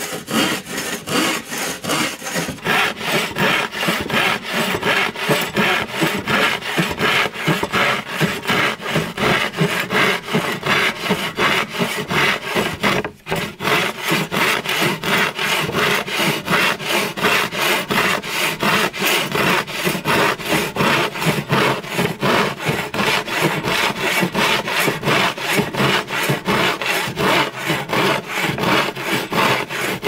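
Hand saw cutting through wood in even back-and-forth strokes, about three a second, with one brief break about thirteen seconds in.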